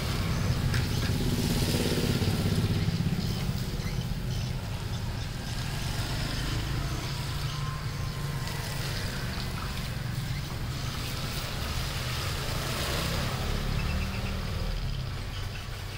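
A steady low rumble of a running engine.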